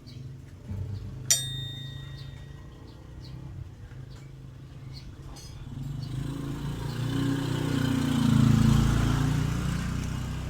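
A single sharp metallic clink with a brief ring about a second in, over a steady low hum. Then a motor vehicle's engine grows louder, is loudest about eight seconds in, and eases off again, as when a vehicle passes close by.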